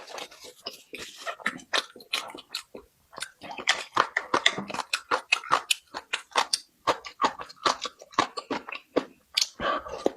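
A person chewing and biting crunchy food: a quick, irregular run of crisp crunches and wet mouth clicks, busiest from about three and a half seconds in.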